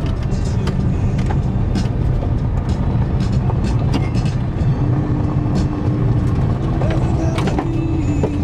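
Car driving on a rough dirt road, heard from inside the cabin: a steady low rumble of engine and tyres, with frequent short knocks and rattles as the car jolts over the uneven surface.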